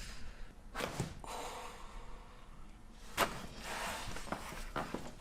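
Joint cracks from a chiropractic adjustment: one about a second in and a louder, sharper crack about three seconds in, amid breathy exhales.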